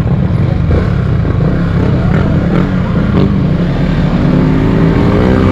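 Motor scooter ridden at speed, its engine running under heavy wind buffeting on the microphone. From about four seconds in, an engine climbs steadily in pitch as it accelerates.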